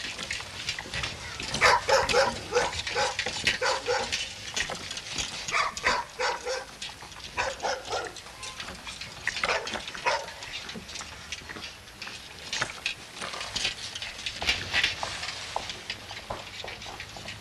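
A dog barking in short runs of barks, loudest about two seconds in, with steps on wet gravel.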